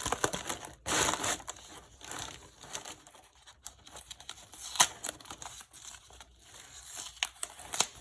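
Packing tape and packaging crinkling and tearing as a shipping box is opened by hand, with scattered sharp crackles and a longer rustle about a second in.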